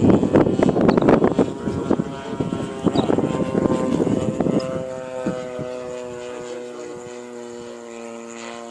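Radio-controlled model airplane's engine and propeller running. The first half is rough and crackly, then it settles into a steady drone that slowly falls in pitch and fades.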